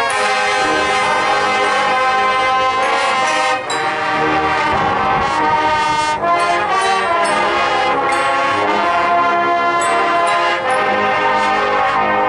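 Marching band playing loud, held brass chords that change every second or two.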